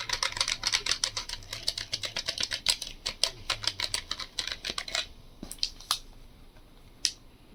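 Typing on a Logitech G915 TKL wireless keyboard with low-profile linear switches. A fast, dense run of keystrokes lasts about five seconds, then a few scattered key presses follow.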